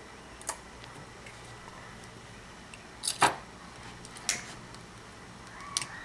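A few short, sharp clicks from handling at the desk: one about half a second in, a louder double click about three seconds in, and two more later. A low steady room hum lies under them.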